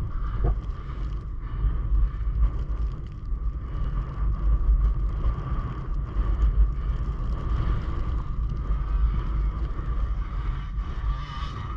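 Enduro motorcycle running steadily while being ridden, with heavy wind rumble on the microphone.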